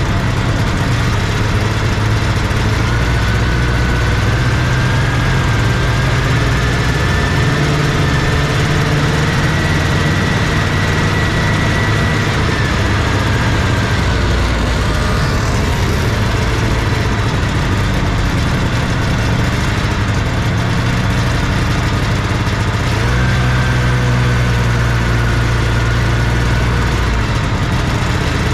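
1979 Scorpion Whip TKX snowmobile's two-stroke engine running at low speed while the sled is ridden. The engine speeds up a few seconds in, eases off around the middle and picks up again near the end, over a steady hiss of the ride.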